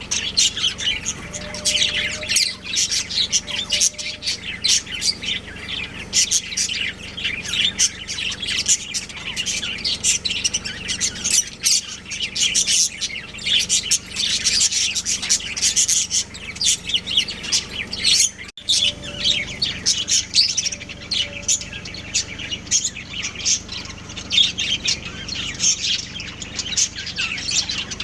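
Budgerigars chirping and chattering without pause, several birds overlapping in quick high chirps.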